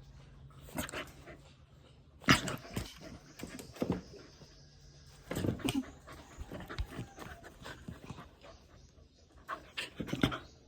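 Golden retriever puppy play-biting, making scattered short, sudden dog sounds, loudest about two, four and five and a half seconds in, with a cluster more near the end.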